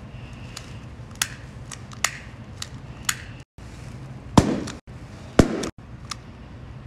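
Latex balloons bursting as a butane utility lighter's flame is held to them: two loud pops about a second apart past the middle. Before them, a run of small sharp clicks from the lighter's igniter.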